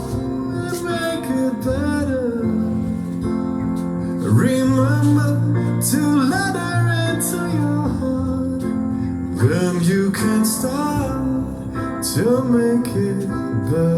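Song with a singing voice and guitar played back through a PS TT-12M 12-inch top speaker and PS SUB905s 15-inch subwoofer during a sound check, with steady bass under the vocal.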